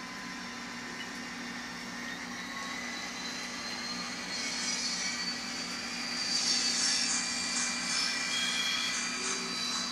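N scale model diesel locomotive's DCC sound decoder playing a steady diesel engine drone through its small speaker as the train runs, with a hiss that grows louder from about halfway through.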